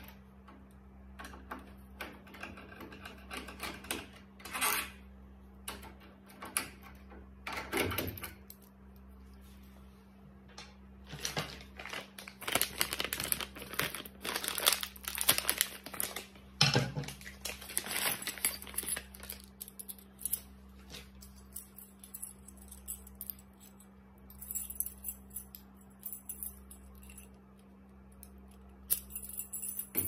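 Small metal clicks, taps and scrapes, with keys jangling, as a euro-profile lock cylinder is worked out of a mortise door lock and a new cylinder with its keys is slid into place. The clicks come in irregular runs and are busiest around the middle. A steady low hum runs underneath.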